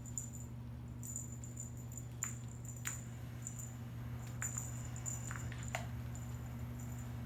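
Small bell on a cat toy jingling in short, repeated shakes as kittens play, with a few light taps and clicks. A steady low hum runs underneath.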